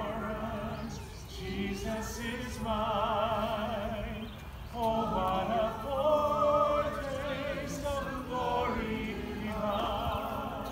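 Mixed church choir singing together in long held phrases with clear vibrato, with brief breaks between phrases.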